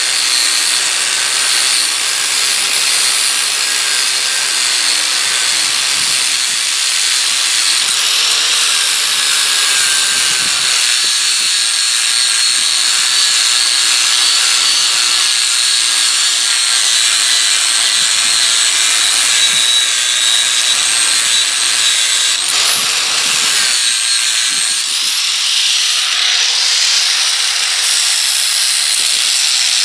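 Electric angle grinder running continuously against the steel of a railroad-track anvil, its pitch dipping and rising as the wheel bears into the metal.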